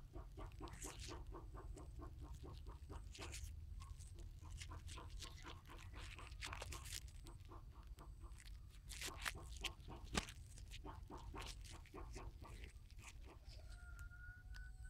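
Faint chicken clucking: quick clucks repeating at about four a second, over a steady low rumble. A few sharp clicks stand out, the loudest about ten seconds in, and a short steady whistle-like note sounds near the end.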